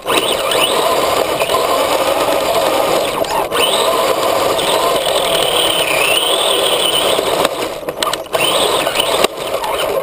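Radio-controlled 4x4 truck driving over rough dirt, heard from a camera riding on it: a high motor and gear whine that rises and falls with the throttle, over the rough noise of the tyres and chassis on the ground.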